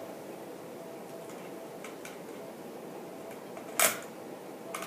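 Small metal clicks from screws and a screwdriver being worked into a ceiling fan's brass light-kit fitter, a few faint ticks and then one sharp click about four seconds in, over a steady background hum.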